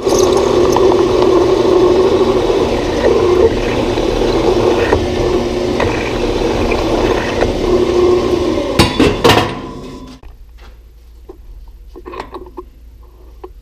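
Grizzly G0602 metal lathe turning a metal workpiece while a twist drill in the tailstock chuck drills into it: a steady, loud machining noise. A few sharp knocks come about nine seconds in, and the noise stops about a second later, leaving faint clicks as the drill chuck is handled.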